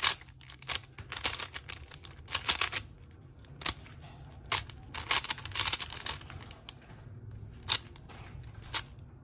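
Plastic clicking and clacking of a stickerless 3x3 speed cube's layers being turned by hand: quick flurries of turns with single clicks and short pauses between.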